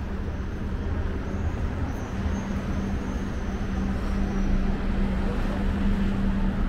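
City street traffic, with a vehicle running close by and giving a steady low hum. A faint high whine comes and goes in the middle.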